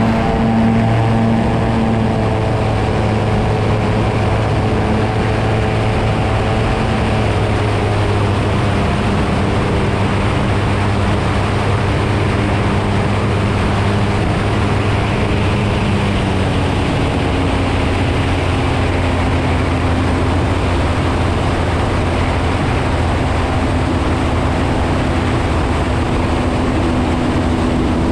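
Seamax light seaplane's piston engine and propeller droning steadily over a broad rush of noise. The engine note shifts slightly about two seconds in and changes again a little past halfway.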